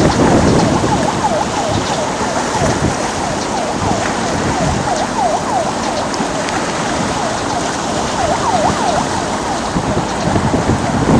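Wind noise on the microphone over open water, with many short calls that dip and rise in pitch scattered throughout.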